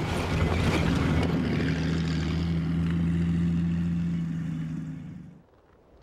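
Spryte tracked over-snow vehicle driving: its engine runs steadily along with the noise of its tracks and wheels, then the sound fades and cuts off about five seconds in.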